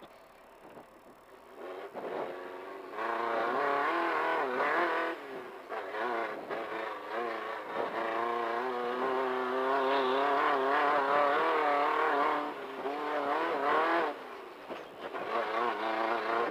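Class 1500 desert race car's engine, quieter at first, then from about three seconds in running hard with its pitch rising and falling as the throttle comes on and off, with a short dip near the end.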